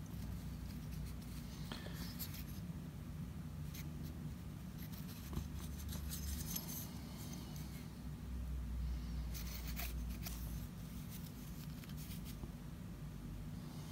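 Faint scratching and a few light clicks of a piston ring being worked by hand around the ring groove of a Jonsered 625 chainsaw piston, checking that it slides freely in the repaired groove. A steady low hum runs underneath.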